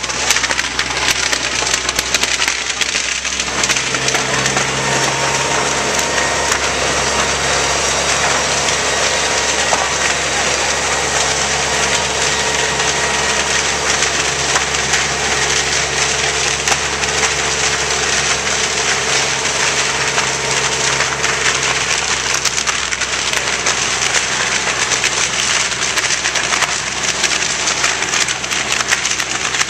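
A burning house's timber structure crackling and popping continuously in a dense, steady roar of fire, over the steady low hum of a fire engine running in front of it.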